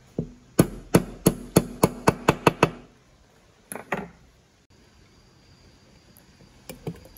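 A hammer tapping a part into a chainsaw's housing. About ten sharp strikes come faster and faster over two seconds, two more follow a second later, and a few lighter taps come near the end.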